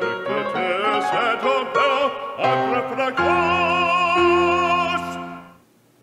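Closing music: an operatic voice singing with vibrato over instrumental accompaniment. It ends on a long held note that fades out about five and a half seconds in.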